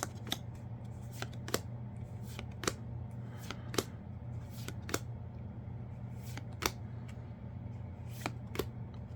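Yu-Gi-Oh trading cards from a freshly opened booster pack being flipped through by hand: irregular short card snaps, about one or two a second, over a steady low hum.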